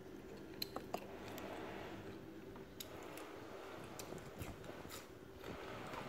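Quiet eating sounds: roast bird meat being bitten and chewed, with scattered sharp little clicks, three of them close together in the first second.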